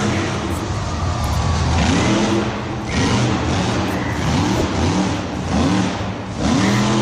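Motor vehicle engine sound with a steady low hum. From about two seconds in it revs up and down again and again in short swells.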